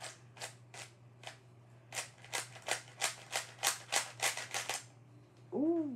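Plastic layers of a stickerless 3x3 puzzle cube clicking as they are turned by hand: a few scattered clicks, then a quick run of about three a second from about two seconds in. Near the end comes a brief voiced sound from the person turning it, over a steady low hum.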